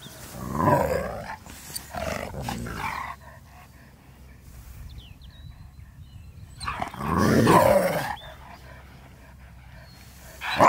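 Huskies vocalising at each other in their 'talking' way: two short calls in the first three seconds, then a longer, louder one about seven seconds in.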